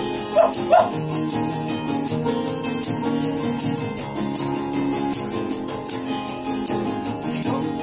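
Acoustic guitars strumming an instrumental passage, with a handheld shaker keeping a steady rhythm.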